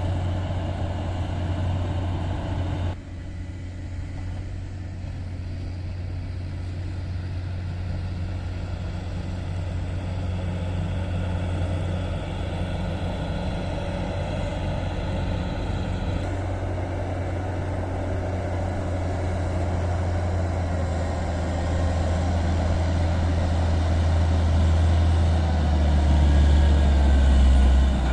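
Caterpillar 140M motor grader's diesel engine running with a steady low drone. The sound drops abruptly about three seconds in, shifts again about halfway through, and grows louder toward the end.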